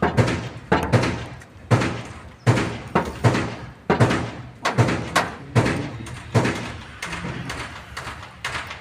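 A run of heavy thuds, about one every three-quarters of a second, each with a short ringing fade, growing weaker near the end.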